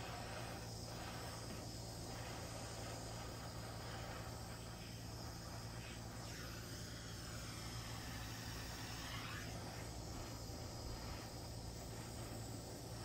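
Small handheld butane blowtorch flame hissing steadily as it scorches the edges of carved wooden lettering.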